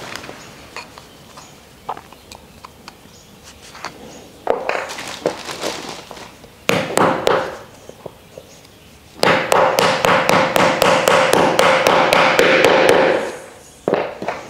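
Mallet tapping wooden plant-stand parts together. Scattered knocks come first, then about four seconds of quick, evenly spaced taps, roughly three or four a second, with a slight ringing.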